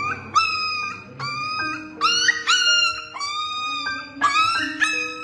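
Puppy whimpering in a run of short, high cries, each scooping upward at the start, over soft background guitar music.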